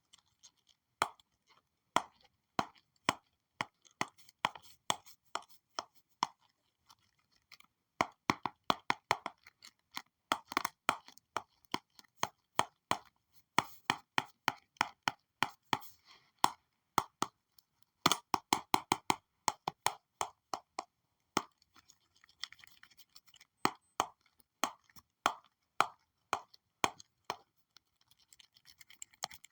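Stylus tapping and sliding on a digital drawing tablet: many sharp, irregular taps, some in quick runs, with stretches of soft scratching strokes between them.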